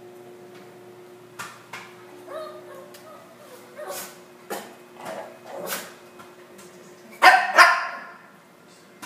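Small dog whining and yipping, then barking loudly twice near the end, over the steady hum of a running microwave oven.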